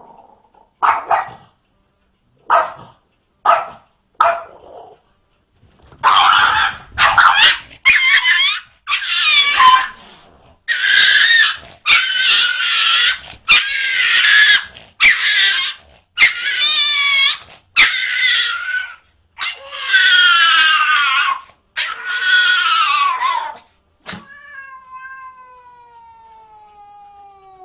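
Cat yowling: a few short calls, then a long run of loud, drawn-out, wavering yowls, ending in one long call that slides down in pitch.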